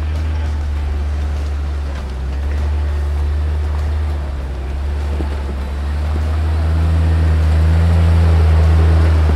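Off-road vehicle engine running steadily under a rushing noise, growing louder about two-thirds of the way through.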